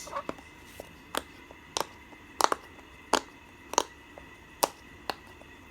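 Bubbles of a pop-it fidget toy being pressed one after another, a series of short sharp pops about every two-thirds of a second.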